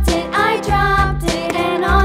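Children's background music: a melody played over a bass line of repeated low notes.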